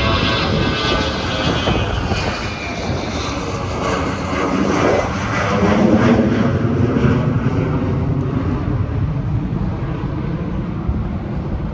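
Twin rear-mounted turbofan jet engines of a Delta Boeing 717 running at high power as the airliner departs and passes, a loud steady jet roar with a whine that falls in pitch as it goes by.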